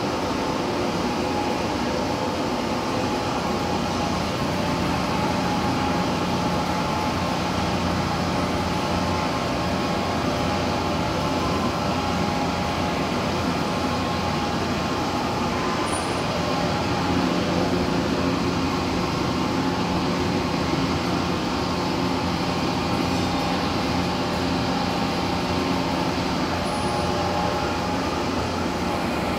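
Heavy-duty lathe running steadily, turning a large metal roller while its tool cuts grooves: a constant mechanical hum and rumble with steady tones in it.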